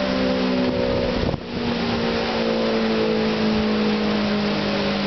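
Outdoor storm warning siren sounding a steady, drawn-out tone over the hiss of heavy rain and wind. The tone briefly sags and drops out about a second in, then comes back.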